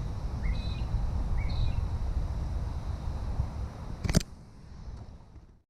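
Wind rumbling on the microphone outdoors, with three short bird chirps about a second apart early on. A sharp click about four seconds in, after which the sound drops and cuts off.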